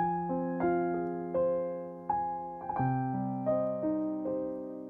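Background piano music: single notes struck every half second or so over held lower notes, each left to ring and fade.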